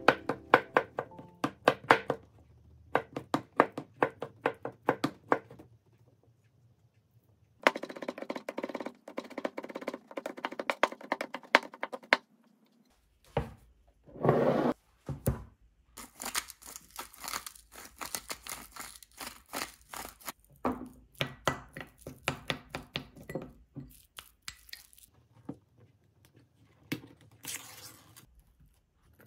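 A chef's knife chopping soft avocado on a plastic cutting board, a quick run of knocks. Later, wooden chopsticks click and scrape in a ceramic bowl as the diced avocado is mixed. Near the end, the peel-off lid of a Spam can is pulled back with a tearing sound.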